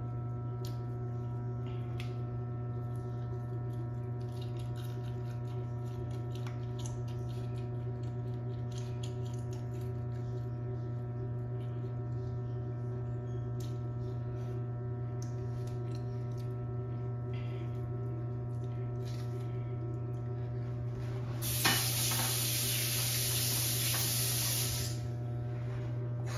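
A steady electrical hum with several overtones throughout, under faint wet clicks and squishes of a lime being bitten and chewed. About three-quarters of the way through, a loud rush of tap water runs for about three seconds.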